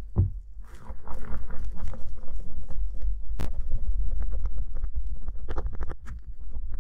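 Foamy homemade slime being stirred and folded with a silicone spatula in a glass bowl: wet, sticky squelching made of many small crackles and pops, with one sharper click about halfway through.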